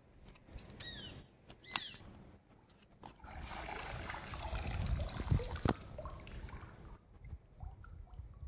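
Water splashing and trickling for about three seconds, starting about three seconds in, as a freshly caught baam (spiny eel) is held at the water's surface. Before it come a few light clicks and two short falling chirps.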